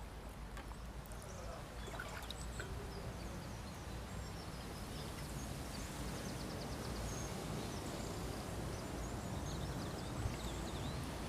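Floodwater rushing steadily, growing slightly louder.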